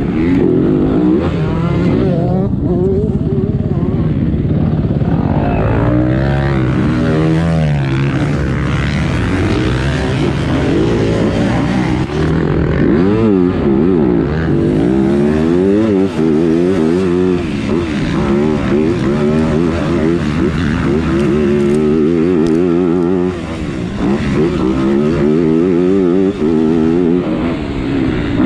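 Motocross bike engine heard from onboard, revving up and falling back again and again as the rider accelerates, shifts and backs off through corners and straights. The throttle briefly drops off about two-thirds of the way through.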